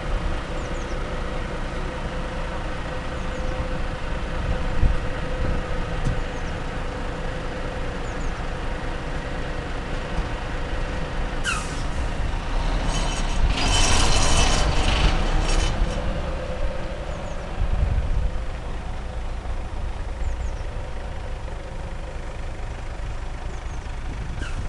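Heavy articulated lorry's diesel engine running as it manoeuvres slowly with a loaded low-loader trailer, with a burst of air-brake hiss from about halfway through lasting a few seconds.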